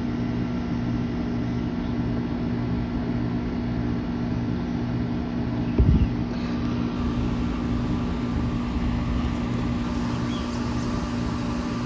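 A steady low mechanical hum with a constant pitch, with one brief thump about six seconds in.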